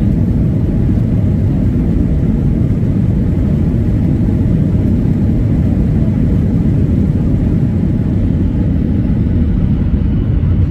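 Airliner cabin noise as the jet taxis after landing: a steady low rumble of the engines and the rolling aircraft heard from inside the cabin.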